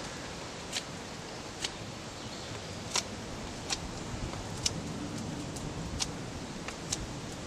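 Real Steel Bushcraft Plus Convex knife shaving thin strips off a wooden stick: about seven short, sharp scrapes, roughly one a second.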